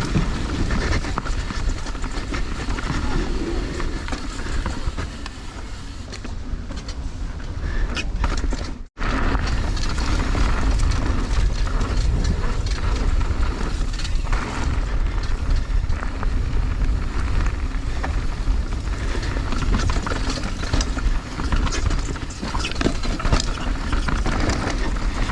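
Transition Spire mountain bike riding down a dirt trail: wind rushing over the microphone, with tyre noise and a constant clattering rattle from something loose on the bike. The sound cuts out completely for an instant about nine seconds in, then the riding noise resumes.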